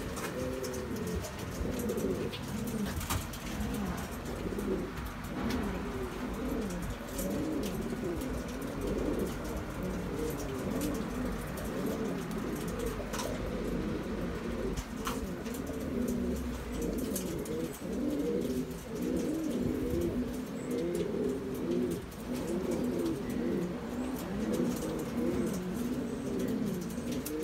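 Domestic pigeons cooing continuously, several low rolling coos overlapping one another without a break.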